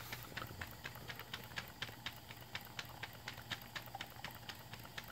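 Stuart Williamson model vertical steam engine running on live steam, quiet, with soft, even ticks at about five a second from each stroke of the engine.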